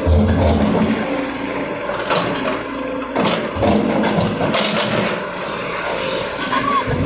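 JCB backhoe loader's diesel engine working under load, with repeated knocks and cracks as the bucket breaks up heavy concrete blocks; a heavy thud right at the start.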